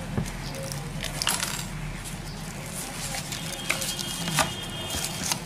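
Hands handling a smartphone's cardboard box and paper inserts: scattered light taps and clicks, with a brief high ringing tone a little past halfway, over a steady low hum.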